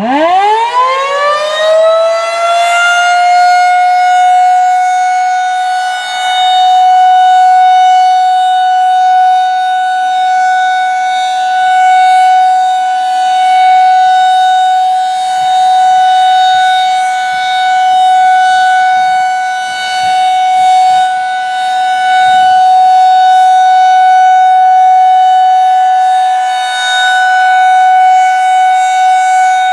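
Federal Signal 2001-SRN rotating electromechanical outdoor warning siren starting up: its pitch climbs steeply over the first few seconds, then holds one steady tone, the alert signal of a monthly siren test. The sound swells and fades every five to six seconds as the siren head rotates.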